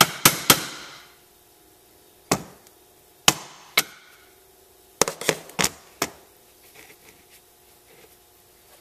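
Ball-peen hammer tapping a key into the keyway of a John Deere mower deck spindle shaft: sharp metal-on-metal knocks, each with a short ring. Two quick taps come at the start, three spaced taps follow, then a run of four taps about five seconds in, and after that only faint handling of the hub.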